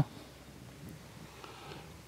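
Faint steady background hiss with no distinct sound event.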